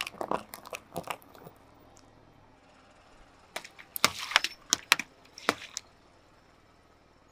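Car tyre rolling over small plastic pots, a quick run of sharp cracks as they snap. About three and a half seconds in, water balloons burst under the tyre in a cluster of pops with a splash of spraying water.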